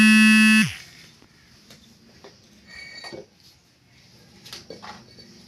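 A loud, buzzing horn-like tone in the first moment, dropping in pitch as it cuts off. Then a few quiet, scattered knocks and clacks of loose fired-clay bricks being set down and shifted on a brick floor.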